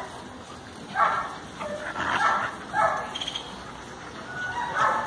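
Dogs barking: about four short barks spread over a few seconds, roughly a second or more apart.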